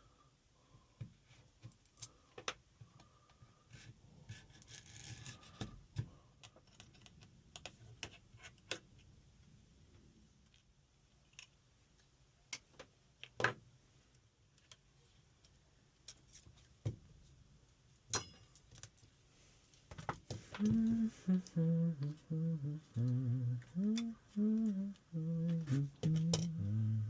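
Small scattered clicks and taps of tools and parts being handled while opening an iPhone XR, then from about twenty seconds in a man humming a tune in short stepping notes.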